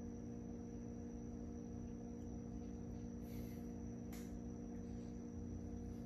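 A steady low hum made of several held low tones, with a faint click about four seconds in.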